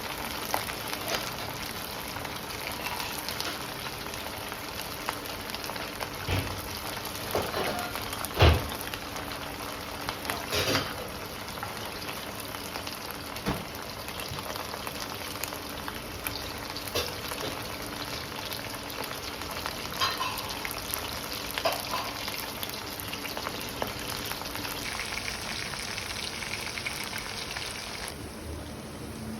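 Chicken pakodi deep-frying in hot oil: a steady sizzle with occasional knocks, the loudest about eight seconds in. The sizzle cuts off shortly before the end.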